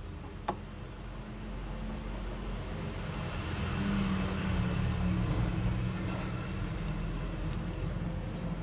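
A motor vehicle engine running with a steady low hum, growing louder toward the middle and then easing slightly. A single sharp click comes about half a second in.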